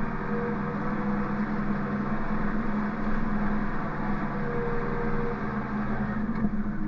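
Engine of a bale-handling machine running steadily with a low hum, easing slightly near the end.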